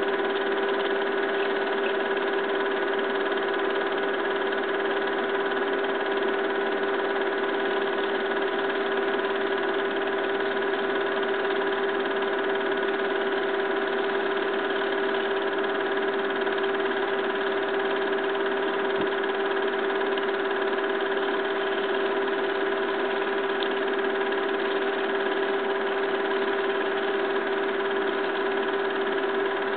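A steady, unchanging motor hum with a held whine and no breaks.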